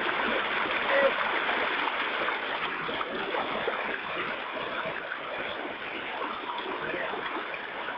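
Small stream running over rocks in a little cascade, a steady rush of water.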